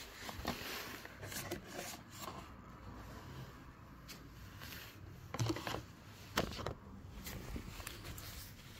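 Stiff card pages of a coin presentation folder being handled and turned: light rustling and sliding of card, with two sharper snaps about five and a half and six and a half seconds in.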